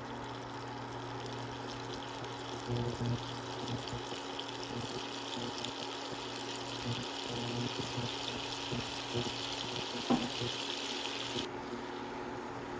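Butter sizzling and bubbling in a saucepan over high heat as it is browned: a steady frying hiss whose higher part drops away near the end.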